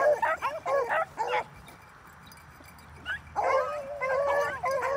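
A pack of beagles baying as they run a rabbit's scent: many high, overlapping yelping calls. The calls stop for about two seconds midway, then start again as a dense chorus.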